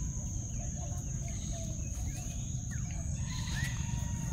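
A steady high insect whine with several short bird chirps over it, most of them in the second half, above a constant low rumble.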